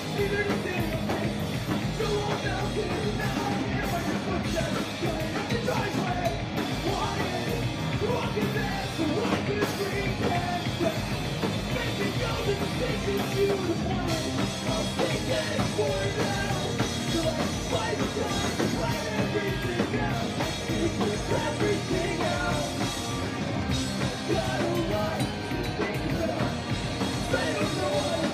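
Live rock band playing a song: electric guitars, bass and drum kit, with a singer at the microphone.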